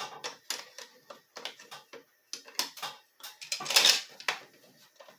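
Irregular clicks, taps and scrapes of small parts being handled against the plastic housing of a battery-powered Black & Decker auto clamp, with a louder scraping rattle about four seconds in.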